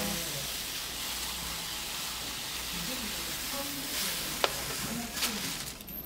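Roasted flaxseed pouring from a pouch onto a wooden plate: a steady, even rush of small seeds falling and piling up. A single sharp click about four and a half seconds in.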